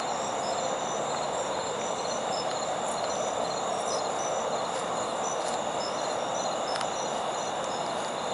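Night insects chirping and trilling in several steady high tones, with short chirps repeating again and again, over a steady rushing background noise.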